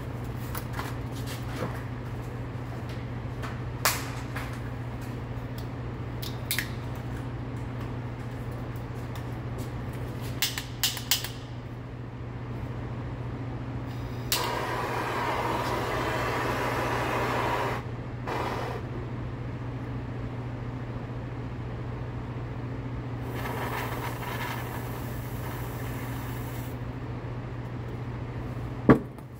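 Hand-held propane torch clicked alight and burning with a steady hiss for about three and a half seconds, then shut off. Later comes a thinner, brighter hiss for about three seconds. A steady low hum and scattered small clicks run underneath, with a sharp click near the end.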